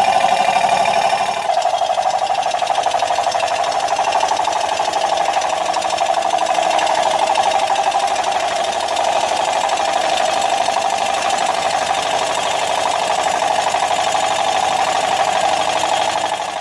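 Milling machine's insert face mill taking a roughing cut across a warped cast iron exhaust manifold flange to flatten it. It makes a loud, steady, rapid rattling grind as the inserts strike the iron.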